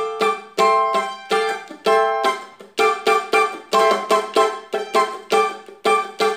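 A plucked string instrument playing the intro passage. It is a run of short, separately attacked chords in a quick rhythm, about two to three a second, each ringing briefly before the next.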